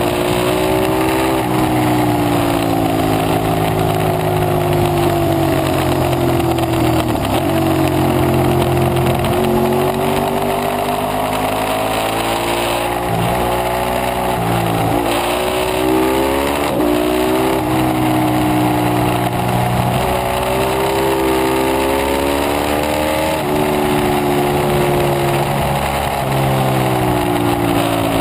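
Ducati 848 Evo Corse's V-twin engine running hard at track speed, its pitch climbing under acceleration and falling again and again, with a quick series of drops and blips around the middle as it shifts down for corners. Heavy wind rush on the bike-mounted camera runs under it.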